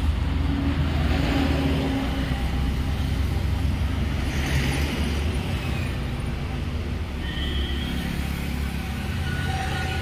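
Steady low engine rumble of passing road traffic, with a brief high tone about seven seconds in.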